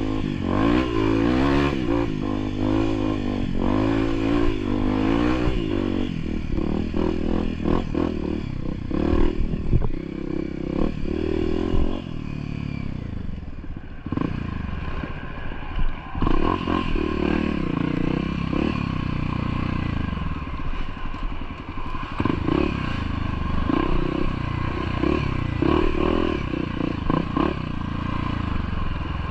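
Trail motorcycle engine running under changing throttle, its pitch rising and falling as it works along a rough trail, with clattering knocks over the top; it eases off briefly about halfway through, then picks up again.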